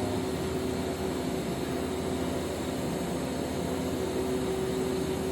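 Arc welding on carbon steel pipe: a steady hiss of the arc with the welding machine's even hum underneath.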